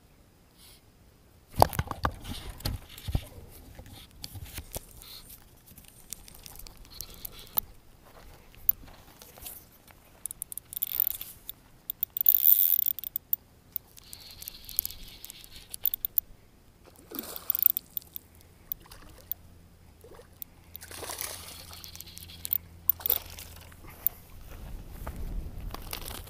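Irregular rustling, scraping and clicking of clothing and hands rubbing against a body-worn camera during fish handling, with a sharp knock about a second and a half in. A splash into the water comes around twenty seconds in.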